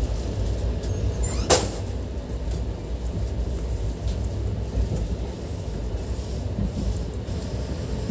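Steady low rumble of a moving passenger train heard from inside the coach, with one sharp click about a second and a half in.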